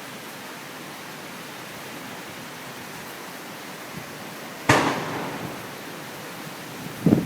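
Hurricane wind and heavy rain making a steady rushing hiss, broken about four and a half seconds in by a single loud, sharp bang that dies away over about half a second.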